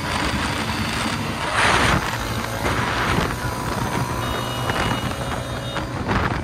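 Hero Splendor motorcycles riding side by side at road speed, their small single-cylinder engines running under heavy wind rush on the microphone, which swells louder several times.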